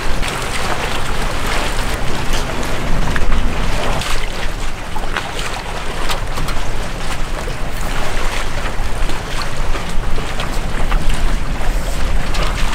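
Steady wind rushing and buffeting the microphone, with a heavy low rumble and gusty crackles, over water washing around a moored yacht.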